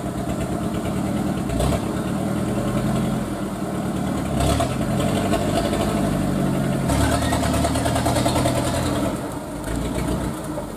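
A loaded light dump truck's diesel engine works under load through deep mud, its revs surging and easing several times.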